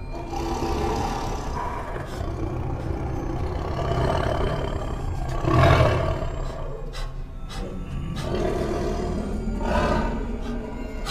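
Lions roaring over background music, with the loudest roar a little past halfway and another shortly before the end.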